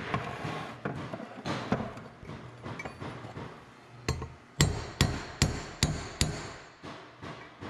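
Ball-peen hammer striking a steel punch set against a bearing inside a John Deere torque hub final drive housing, driving the bearing out. Lighter, uneven taps over the first few seconds give way to a run of five hard metal-on-metal blows about 0.4 s apart.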